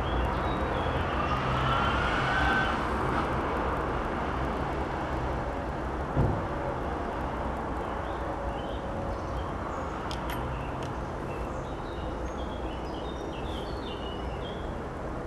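Background traffic noise: a steady low rumble of passing vehicles, with a rising tone early on, one dull thump about six seconds in, and short high chirps in the second half.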